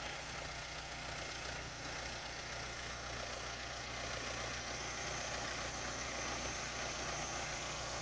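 Case 580E backhoe engine idling steadily, a little louder from about halfway through.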